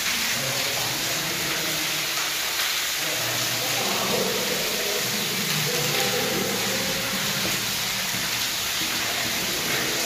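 Steady rush of falling water, echoing down a concrete drain pipe.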